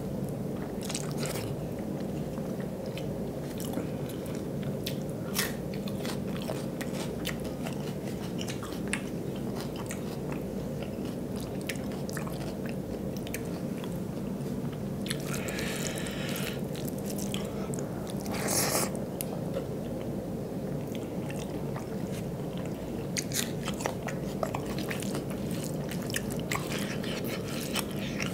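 Close-miked eating sounds: chewing and wet mouth noises as rice with dal and aloo chokha is eaten by hand, with fingers mixing food on a steel plate. Scattered small clicks run over a steady low hum, and one sharp crunch about two-thirds of the way through is the loudest sound.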